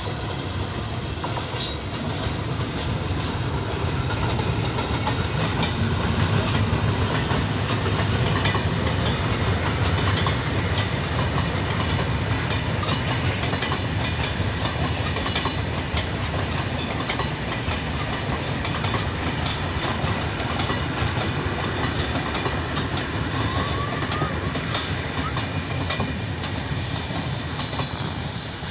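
Passenger train of coaches running past: a steady rumble with the clickety-clack of wheels over rail joints. It swells to its loudest a quarter to a third of the way in, then slowly eases as the rest of the coaches go by.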